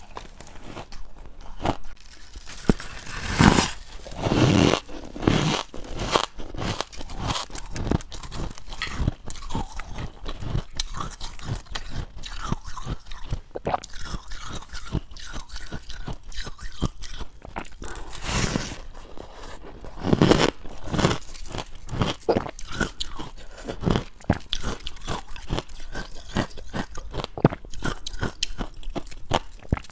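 Close-up crunching of dry, powdery freezer-frost ice being bitten and chewed, a steady run of fine crackles with a few louder bites, the biggest about three and a half seconds in and again near two-thirds of the way through.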